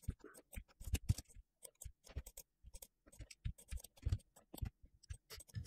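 Faint, irregular clicking of computer keyboard keys and mouse buttons, many short clicks in quick succession.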